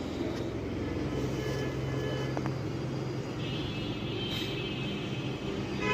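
A steady low background hum with faint thin high tones that come and go.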